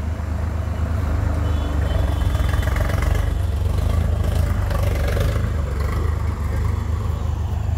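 Heavy diesel machine's engine running steadily with a low rumble.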